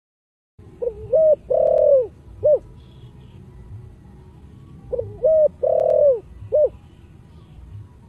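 Spotted dove cooing: two phrases about four seconds apart, each of two short coos, a long drawn middle coo and a short closing coo.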